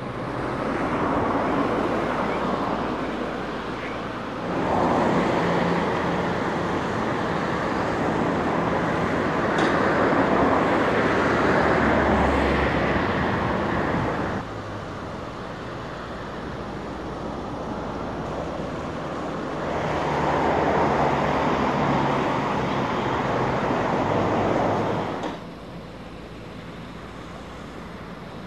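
Case crawler excavator's diesel engine running steadily, swelling louder twice for several seconds at a time as it works under load, then dropping back.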